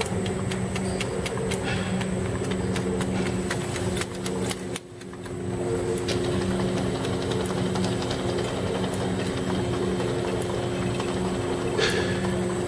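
Automatic glass dropper bottle labeling machine running: a steady motor and conveyor hum with scattered light clicks as the bottles travel along the stainless slat-chain conveyor. The hum drops briefly about five seconds in.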